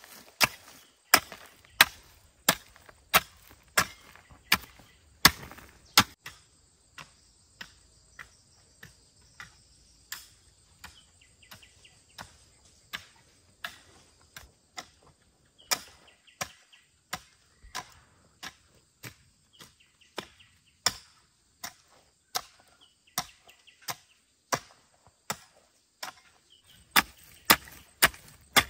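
Steady chopping with a blade, one sharp strike about every 0.7 seconds. The blows are hard for the first few seconds, lighter through the middle and hard again near the end.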